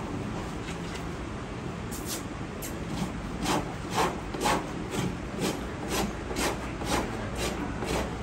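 Farrier's hoof rasp filing a horse's hoof during trimming: rhythmic scraping strokes, about two a second, starting about two seconds in and getting louder, over a steady low hum.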